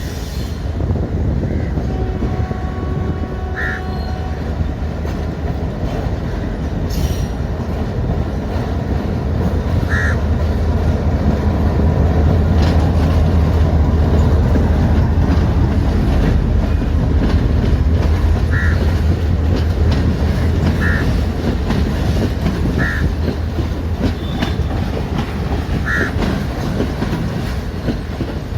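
EMD G22CW diesel-electric locomotive (Sri Lanka Railways Class M6) running with a train, its engine rumble growing loudest midway and then easing, wheels clattering over rail joints. Brief high squeals from the wheels come every few seconds.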